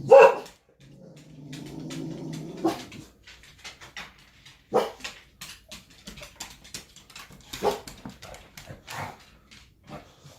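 A pet dog barking in single barks, the loudest right at the start and others about five, eight and nine seconds in, with a longer, steady, lower sound between one and three seconds in.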